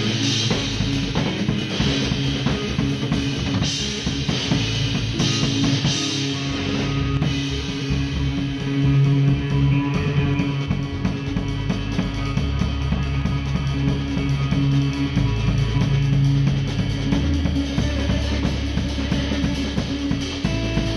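Live instrumental trio of drum kit, electric bass guitar and electric guitar playing together. The drums keep up steady cymbal and drum work under held bass notes.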